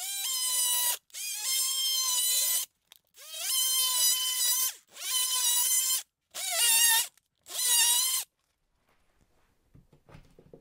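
Cordless oscillating multi-tool cutting through drywall in five bursts of a high whine, each rising in pitch as it starts. The last two bursts are short.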